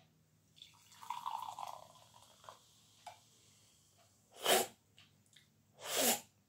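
Fanta Lemon poured from a can into a glass mug: a fizzing pour lasting about a second and a half, then a couple of light clicks. Then two short loud breathy bursts about a second and a half apart as the can is drunk from.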